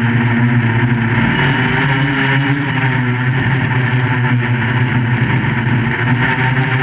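QAV400 quadcopter's electric motors and propellers running in flight: a steady, loud buzzing hum whose pitch wavers slightly.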